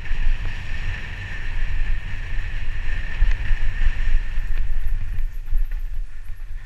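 Mountain bike descending a dirt trail, heard from a helmet camera: wind rushing over the microphone and tyres rumbling over dirt and stones. A steady high buzz runs through the first few seconds and fades out about four and a half seconds in.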